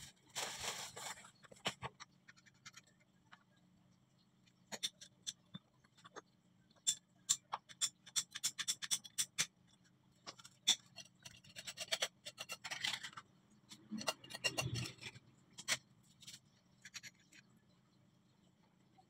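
Hands working plastic PPR pipe fittings in wet mud: scattered clicks and scrapes with spells of scratching, over a faint steady low hum.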